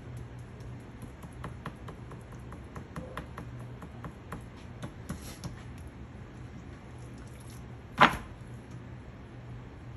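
Hands pressing and rubbing dry seasoning into a raw rack of ribs on a plastic cutting board, with light scattered taps and ticks, then one sharp loud slap of the hands about eight seconds in, over a low steady hum.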